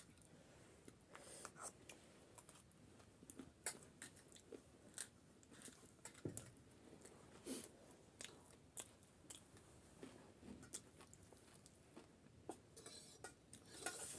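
Faint close-up chewing and crunching of crisp street snacks, with irregular small crackles and mouth clicks.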